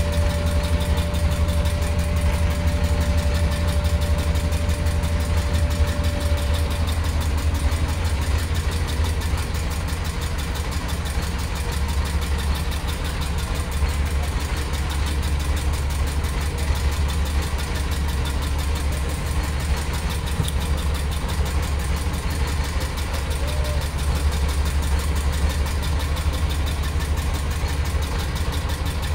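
Boat engine idling steadily, mostly a low, even hum.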